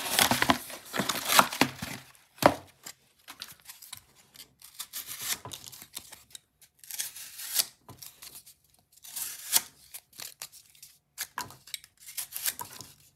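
American Bladeworks Model 1 folding knife blade slicing and tearing through thick double-wall cardboard, in several separate cuts with pauses between. There is a sharp knock about two and a half seconds in.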